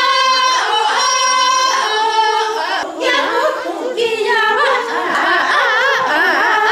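A group of Achuar women singing together without accompaniment as they dance in a hand-holding line. Long held notes for the first few seconds, then, after a short break, the voices quaver up and down in pitch.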